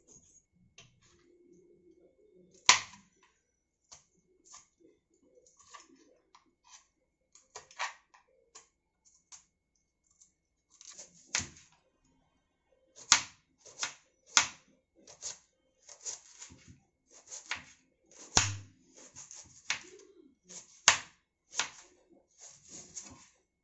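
Kitchen knife slicing red onions on a wooden chopping board: sharp taps of the blade striking the board. They come sparse and irregular at first, then faster and more even, about two a second, in the second half.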